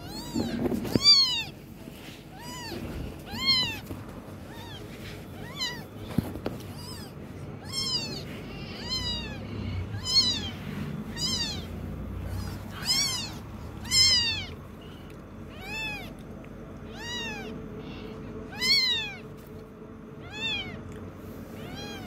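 Very young kitten mewing over and over: short, high-pitched cries that rise and fall, about one a second.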